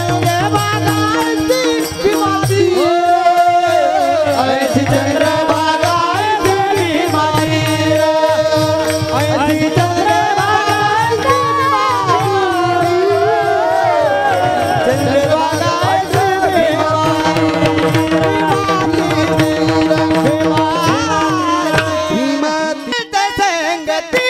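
Devotional kirtan chorus: several men sing a chant together while clashing small brass hand cymbals in a fast, steady rhythm. A drum keeps time and a steady held note sounds underneath. The music thins briefly near the end.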